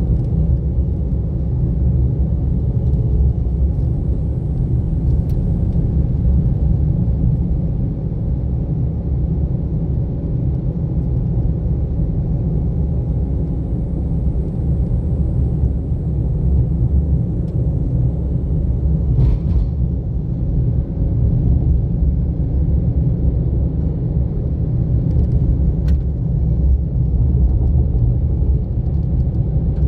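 A car driving along a road, with a steady low rumble of engine and tyres. A single sharp knock comes about two-thirds of the way through, and a few faint clicks follow.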